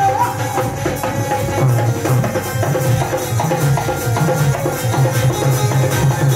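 Live Hindu devotional bhajan music: a dholak drum beating a steady rhythm under a sustained, gliding melody.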